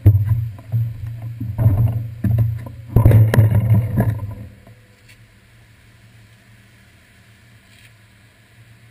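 Riding noise of a bicycle picked up by a handlebar-mounted GoPro: a low, uneven rumble of wind and road vibration with irregular knocks from bumps. It stops about four and a half seconds in as the bike comes to a halt, leaving a faint, steady background.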